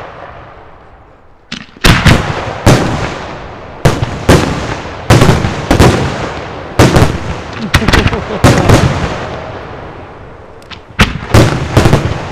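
Aerial firework shells launching and bursting overhead in quick succession: more than a dozen sharp booms, each trailing off in a long rolling echo, with a lull of about two seconds before a last cluster near the end.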